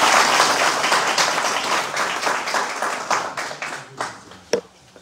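A small group applauding, the clapping loudest at first and dying away over about four seconds. A single sharp tap sounds near the end.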